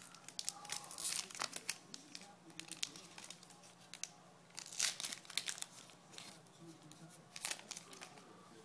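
Baseball-card pack wrapper being torn open and crinkled by hand: irregular crackling, loudest about a second in and again around five seconds in.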